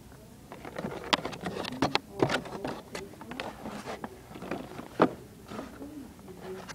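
Plastic blister-pack toy packages being handled on a cardboard store display: rustling with a string of sharp clicks and taps, the loudest about a second in, around two seconds in and about five seconds in.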